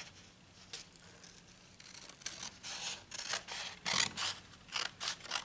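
Scissors cutting through paper in a quick series of snips, starting about two seconds in.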